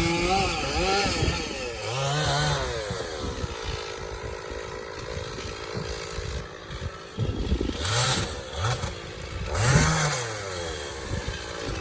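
Stihl MS460 two-stroke chainsaw running, revving up and dropping back several times while bucking wood, with the loudest revs about eight and ten seconds in.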